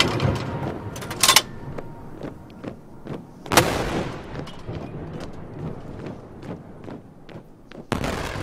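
Ceremonial salute cannons firing a gun salute: three loud booms a few seconds apart, each trailing off in echo, with smaller pops between.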